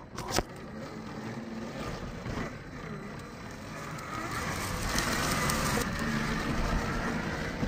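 1/10-scale RGT Rescue LC70 RC crawler's electric motor and gears whining, the pitch rising and falling with the throttle as it climbs over rock, with a sharp knock about half a second in.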